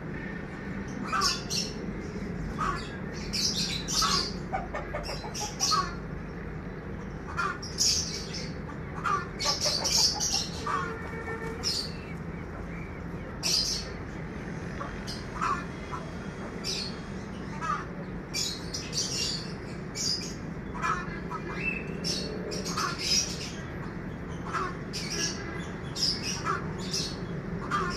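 Birds chirping in short, high calls, irregularly one or two a second, over a steady low hum.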